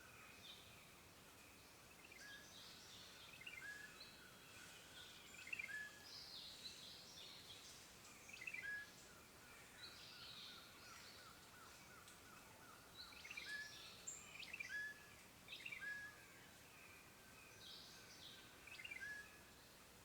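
Quiet forest ambience: faint birds chirping and calling in short repeated phrases every second or two, over a soft steady hiss.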